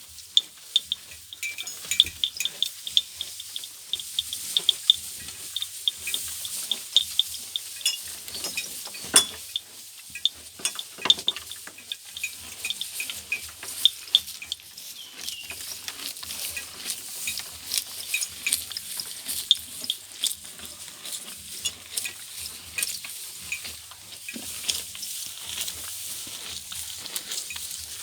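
Irregular crisp snapping and rustling of grass stems being torn or cut, repeating throughout, with faint high chirps behind it.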